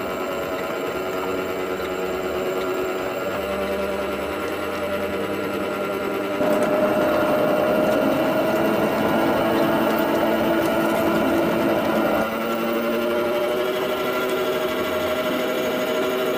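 Home-built miniature ride-on locomotive running along its track, a steady whine of its drive motor and gearing with wheels rolling on the rails. It is louder from about six seconds in until about twelve seconds.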